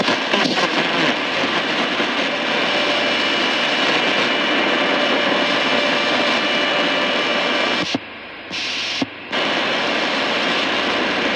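Shortwave static hiss from a Tecsun portable radio as it is tuned up through the 49-metre band between stations, with faint steady whistling tones in the noise. The noise drops away briefly twice, about eight and nine seconds in.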